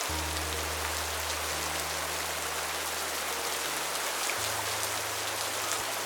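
Steady rain hiss with scattered drop ticks. Under it, soft background music holds low sustained chords that change a couple of times.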